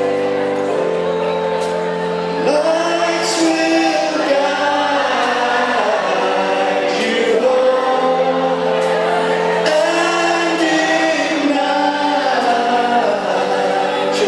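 A live band playing a song with a group of voices singing over held chords, with a sharp percussive hit about once a second.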